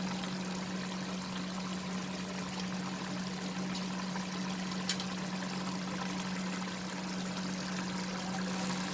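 Steady hiss of a pan of gourd and prawn curry cooking on the stove, with a low steady hum underneath and a faint tick or two.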